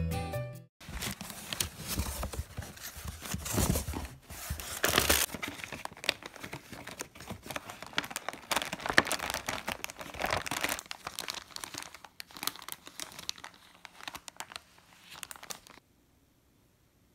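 Kraft paper gift wrapping crinkling and tearing as a package is unwrapped by hand, in uneven rustles and crackles that stop about a second before the end.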